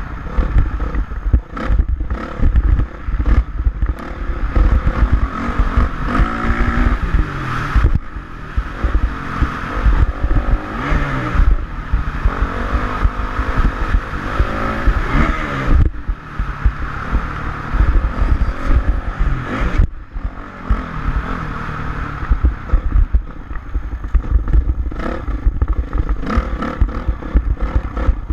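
Dirt bike engine revving up and down as it is ridden, with wind buffeting the microphone.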